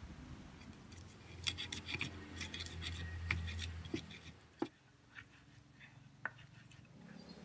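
Pestle crushing and grinding shallots, garlic, turmeric and peppercorns in a cobek (flat Indonesian mortar) for a spice paste: rapid clacks and scrapes of the pestle against the mortar, busiest in the first half, then a few scattered knocks.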